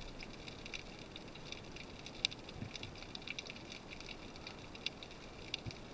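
Underwater ambience over a rocky, weed-covered seabed: a faint, irregular crackle of small clicks and ticks, with one sharper click about two seconds in.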